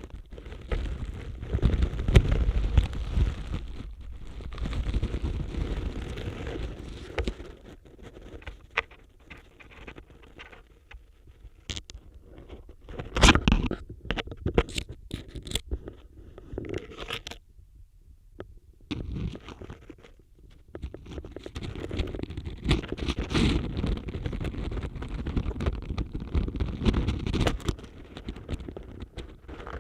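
Dry autumn leaves scraping and crackling against a contact microphone as it is pushed and rubbed through them. Dense crackling at first, then a sparser stretch of scattered sharp crackles with a brief lull, then dense crackling again.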